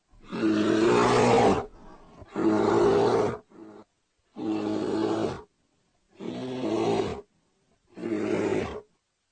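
Bear calling: five loud calls of about a second each, evenly spaced, with a short weaker call just after the second.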